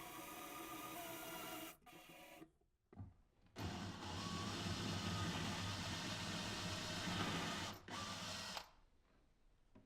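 Power drill with a 5 mm bit boring shallow holes into a kitchen cabinet's side panel. There is one run ending about two seconds in, a longer run of about four seconds from about three and a half seconds in, and a brief last run near the end.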